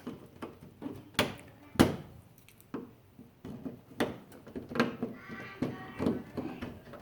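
Flathead screwdriver prying plastic push-pin retainers out of the top of a 2007 Pontiac G6's front bumper cover: a few irregular sharp clicks and knocks of plastic and metal.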